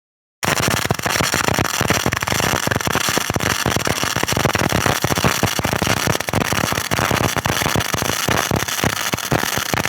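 MIG welding arc crackling steadily, a dense rapid sputter that starts about half a second in.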